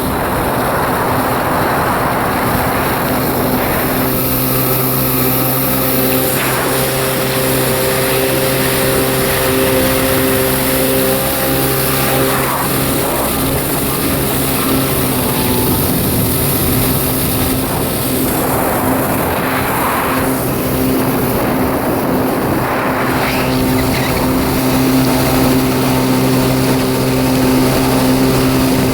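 Kawasaki 650SX jet ski's two-stroke twin engine running steadily under way, over a rush of water and wind that swells several times and drops again.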